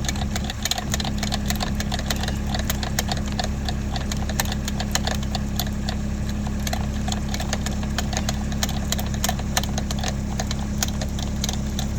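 CAT 301.7 mini excavator's diesel engine idling steadily, with a rapid, irregular clicking over it while the hydraulic quick-hitch pin pushes down to lock the bucket pin.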